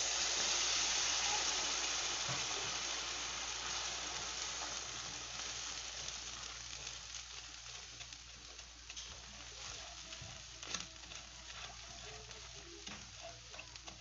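Orange liquid poured onto hot sugar and oil in a nonstick wok sizzles loudly, then slowly dies down while a slotted spatula stirs and scrapes the pan, with a few light knocks.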